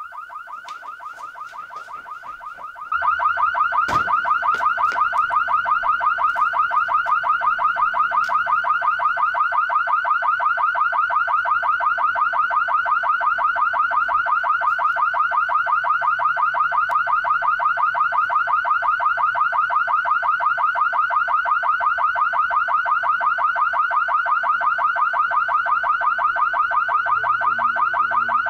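Loud electronic alarm tone pulsing rapidly and evenly, jumping louder about three seconds in.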